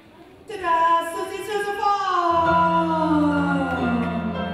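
A long musical note that slides steadily down in pitch for about four seconds, with a low held note joining about two seconds in.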